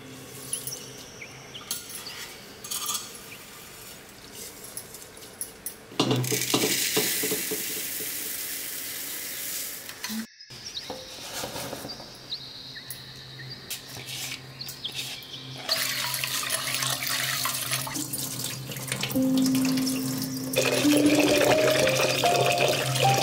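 Kitchen tap running into a clay pot as it is scrubbed by hand, with short clinks of utensils between spells of running water. The water is loudest near the end.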